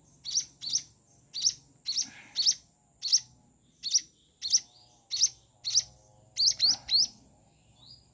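A week-old munia chick's begging calls while being hand-fed: short, high, rising chirps, about two a second and often in quick pairs, as it eats greedily.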